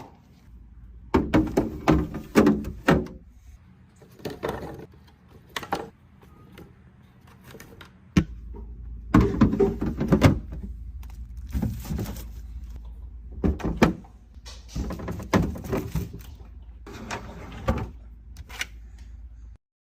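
Kitchen containers and groceries being handled and set down on shelves: irregular thunks and clatter in clusters, with short pauses between.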